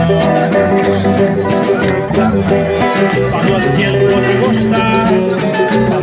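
A band playing upbeat Cape Verdean music, with plucked guitars over a steady beat.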